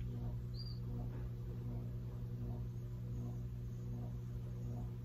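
Room tone: a steady low hum with faint, soft sounds now and then.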